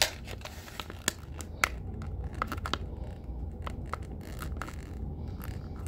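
Plastic film lid being peeled off a clear plastic cake container, with irregular sharp crackles and clicks of the plastic throughout.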